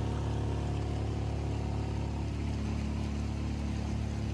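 Boat motor running at a steady speed, with the rush of wake water and wind.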